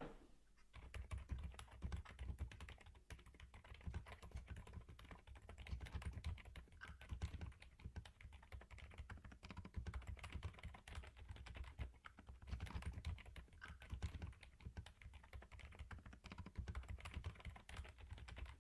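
Continuous fast typing on a Yunzii AL71 mechanical keyboard fitted with silent switches: a quiet, steady patter of dampened keystrokes that starts about a second in.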